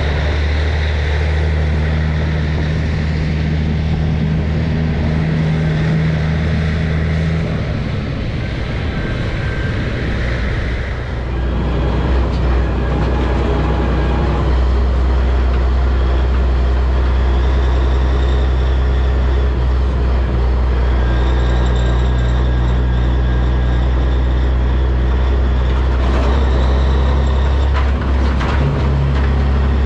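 A vehicle engine runs steadily as a low drone, with road and wind noise over it; the drone shifts slightly about eleven seconds in.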